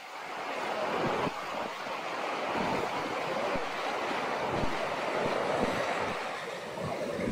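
Mountain stream rushing steadily down from the peaks by a waterfall. Low bumps of wind on the microphone come and go through it.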